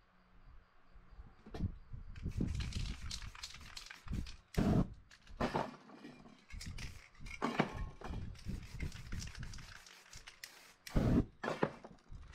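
Aerosol spray-paint can spraying in a series of hissing bursts, some short and some held for a second or more.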